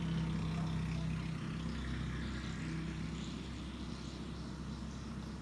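Steady low background hum with a faint hiss, with no distinct events.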